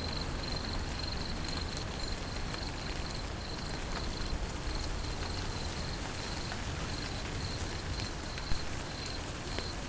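Steady rain falling, with an insect trilling in a pulsing high note behind it. There are scattered drip clicks and one louder tap near the end.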